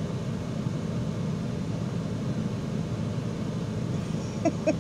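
Steady low hum inside a stationary car's cabin, with the car's engine idling.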